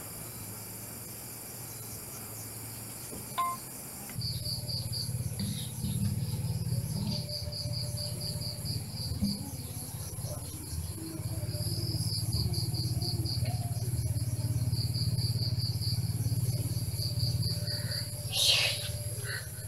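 Night insects calling, crickets among them: a steady high-pitched buzz with a pulsing trill over it. About four seconds in, a low steady hum joins. A short loud noise comes near the end.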